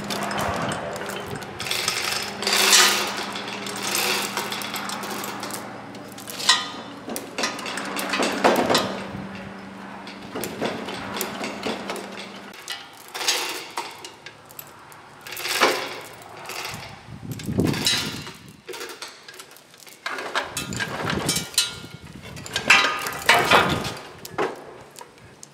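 Chain hoist lifting a crawler transmission: repeated metal clanks and knocks of chain and steel parts, with a steady hum under the first half that stops about halfway.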